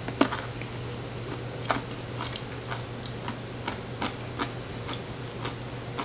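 A bite into a crunchy fermented dill pickle just as the sound begins, then chewing: sharp crisp crunches about two a second, over a steady low hum.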